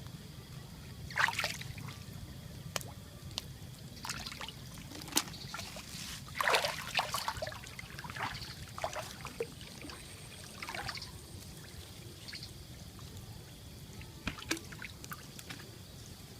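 Water splashing and trickling in short, irregular bursts, the loudest about six and a half seconds in, over a faint low hum.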